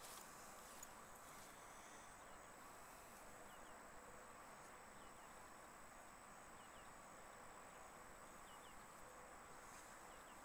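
Near silence: faint steady night-time insect chirring with a thin high whine, and a few faint short chirps scattered through.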